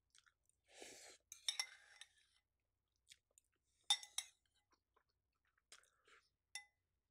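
Faint chewing of a mouthful of food, with a few sharp light clinks of a fork against the bowl about one and a half and four seconds in.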